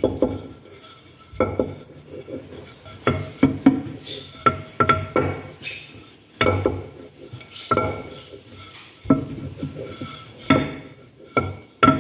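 Wooden rolling pin rolling out dumpling dough on a stone countertop: a low rolling rumble broken by sharp wooden knocks against the counter, about one a second, sometimes two or three in quick succession.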